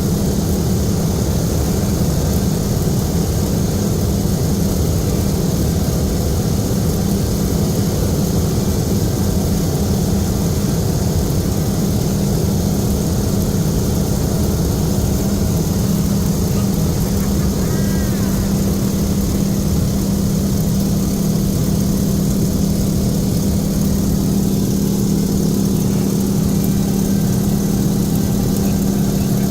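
BT-13 Valiant's Pratt & Whitney R-985 nine-cylinder radial engine and propeller running steadily, a constant deep drone with no change in pitch.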